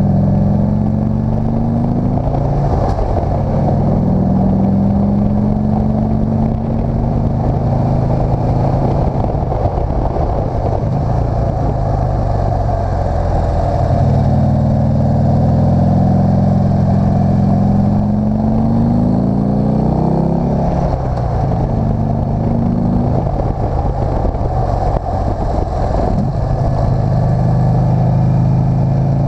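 Motorcycle engine heard from the rider's seat while climbing a winding mountain road, running steadily with its pitch rising repeatedly as it accelerates and falling back between bends.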